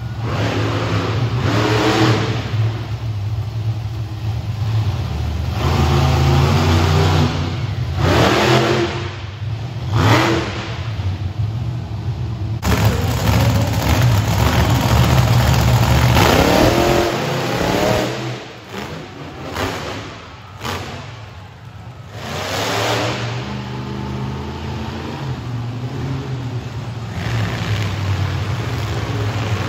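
Monster truck engines revving up and down again and again over a low idling rumble, the revs rising and falling in pitch; they ease off briefly about two-thirds of the way through.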